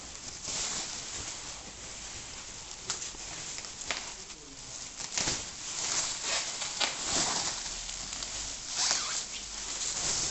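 Packaging being torn and unwrapped by hand: crinkling plastic and paper rustling in irregular crackles.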